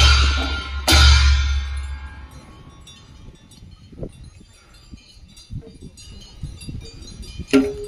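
A large drum and big brass cymbals struck together, once at the start and again about a second in, the cymbals ringing away over the next two seconds. Then the playing stops, leaving only a few faint knocks, until a new pitched sound begins near the end.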